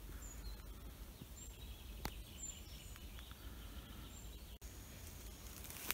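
Quiet forest ambience: a few brief, high, thin bird chirps over a low steady background noise, with a light click about two seconds in.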